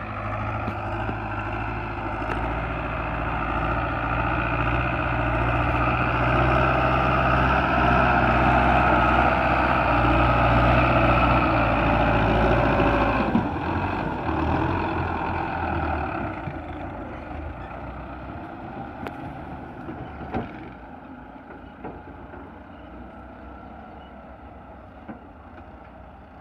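Belarus tractor's diesel engine working hard as it pulls a trolley heaped with soil, loud and steady for the first half, then dropping away about halfway through and running quieter after that.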